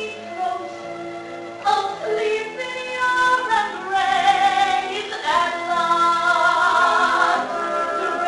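Musical-theatre ballad singing with orchestral accompaniment: a voice sings long held and sliding notes over sustained strings, growing louder and fuller about four seconds in.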